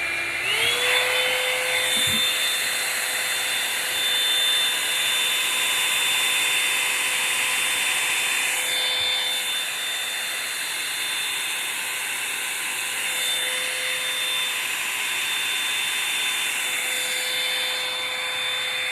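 Revlon One-Step hot-air brush dryer running with a steady motor whine over rushing air. Its pitch steps up about half a second in.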